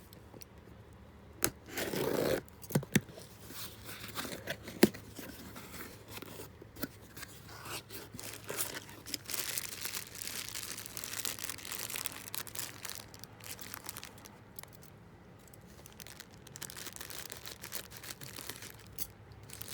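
Packaging tearing and crinkling as a small box is opened by hand, with a few sharp knocks and clicks in the first five seconds.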